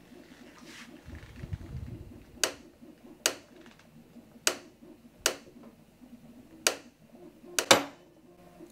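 Sharp plastic clicks, about one a second with a double click near the end, from the 3D-printed bevel gears of a robot-arm joint jumping teeth under heavy torque as the input pulley is turned by hand. A brief low rumble comes about a second in. The teeth are breaking, which the builder puts down to misaligned bevel gears.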